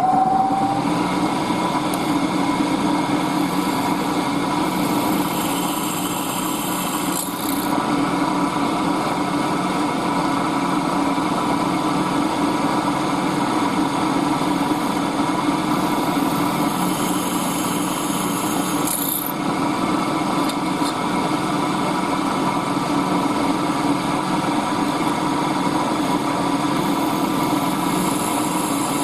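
An electric power tool's motor running steadily and loudly, with brief changes in its sound about 7 and 19 seconds in.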